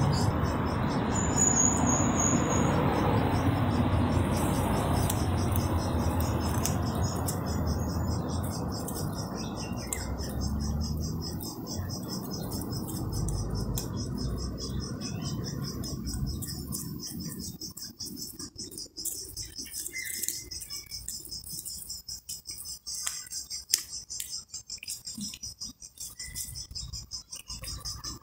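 Insects chirring steadily in a high, pulsing buzz over a low rumble that fades away about two-thirds of the way through. In the quieter stretch that follows come small scattered clicks of a cat chewing fish.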